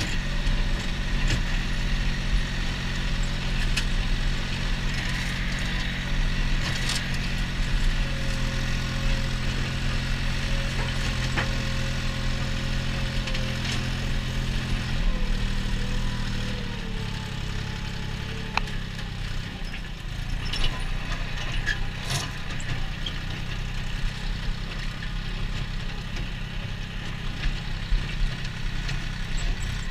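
Compact tractor's engine running steadily while pulling a flail mower, its note dropping in pitch about halfway through as the revs come down. A few sharp clicks.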